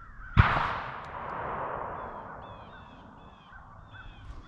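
Crows cawing repeatedly, and about half a second in a single sudden loud bang whose rushing tail fades over about two seconds.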